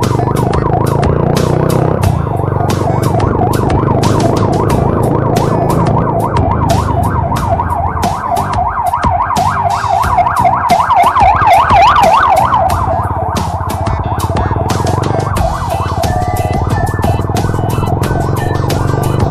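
A siren-like wail sweeping rapidly up and down in pitch, loudest about eleven to twelve seconds in, over a fast, steady ticking beat.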